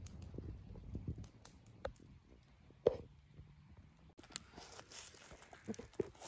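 Scattered knocks, clicks and rustling from things being handled, with one sharp knock about three seconds in and a low rumble in the first second or so.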